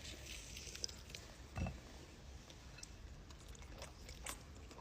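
Faint eating sounds of seafood: soft, wet chewing with scattered small clicks, and one dull thump about a second and a half in.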